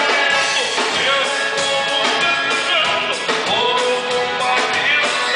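Gaúcho fandango band music led by a button accordion (gaita), with a backing band playing a steady beat.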